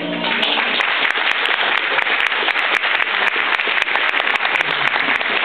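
Audience applauding, a dense, steady clapping that sets in as the final held note of the euphonium and keyboard ends.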